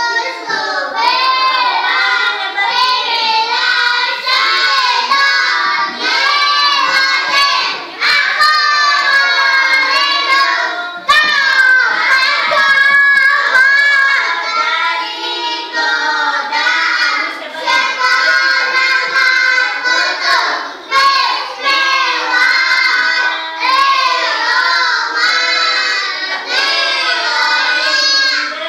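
A group of young children singing a song together, with their voices running continuously in short phrases.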